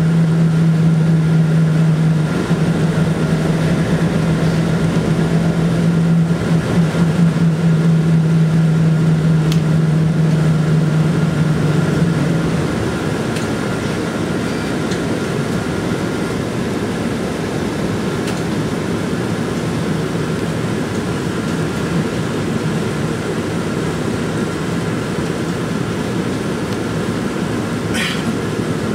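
Inside the cabin of a moving city bus: engine and road noise. A steady low engine hum runs for about the first twelve seconds, then drops away as the bus eases off and rolls on with quieter road noise.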